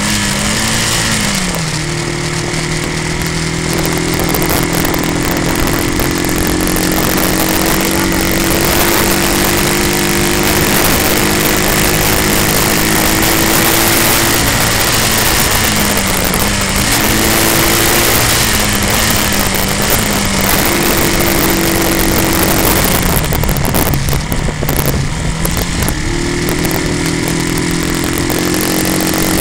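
Motorcycle engine running under way, its note dropping and climbing again several times as the throttle is eased and reopened, over a steady rushing noise.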